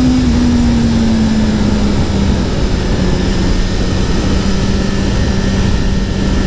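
BMW S 1000 RR's inline-four engine running at steady high revs on track: one even drone that rises slightly and eases back in the first two seconds. A constant rushing noise sits under it.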